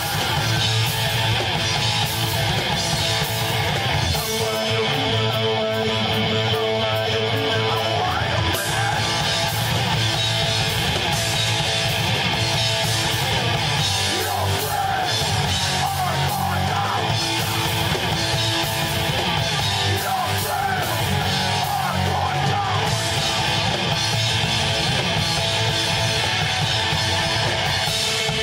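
Rock band playing live: loud, guitar-driven music that keeps going without a break.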